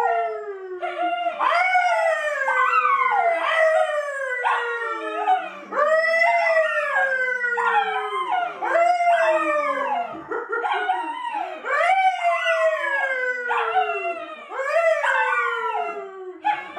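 A man and a brown poodle howling together: a long run of drawn-out howls, each falling in pitch, following one another and overlapping with barely a break.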